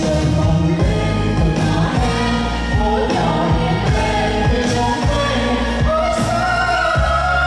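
Vietnamese pop song: singing over a band backing with a steady bass beat, the voice holding a long note from about six seconds in.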